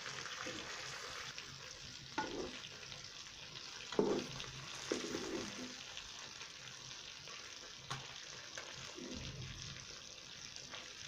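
Fish pieces sizzling in hot oil in a kadhai, with a steady hiss. The metal ladle scrapes and knocks against the pan a few times as the pieces are turned and lifted out, fried through.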